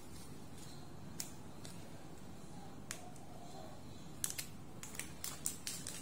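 Foil spice sachet crinkling and clicking as the powder is shaken out over a mug: a couple of single clicks, then a quick run of them about four seconds in.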